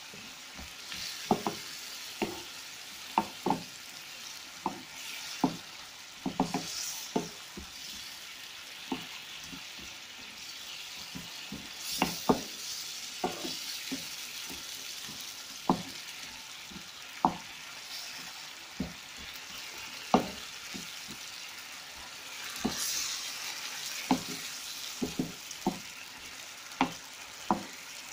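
Chicken pieces, potatoes and carrots sizzling in a frying pan while a wooden spatula stirs and turns them, knocking against the pan at irregular moments.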